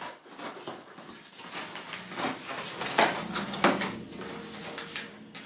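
Cardboard parcel being opened by hand: a run of rustling, scraping and tearing of card and paper, with two sharper snaps about three seconds in.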